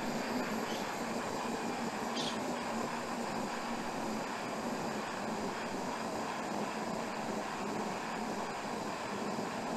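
Canister-top backpacking stove on a green propane cylinder burning under a pot, a steady roaring hiss.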